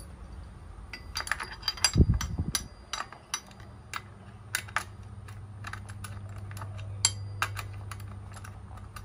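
Irregular metallic clicks and taps of a T-handle socket wrench being worked on a fitting of a brush cutter's two-stroke engine head, with one heavy thump about two seconds in. A faint low hum runs underneath.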